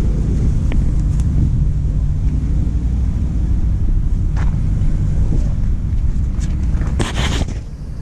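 Wind buffeting the microphone over a steady low engine rumble. About seven seconds in there is a short, loud hiss, and then the rumble drops.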